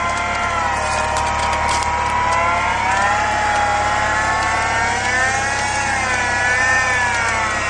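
Electric winch on a Toyota Land Cruiser whining under load as it winches the truck forward through deep mud, its high whine wavering up and down in pitch as the strain changes. The truck's engine runs low underneath.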